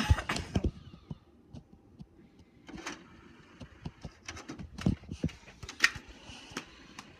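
Plastic clicks and knocks of DVD discs and cases being handled at a DVD player: a quick cluster of knocks at the start, then single clicks every second or so.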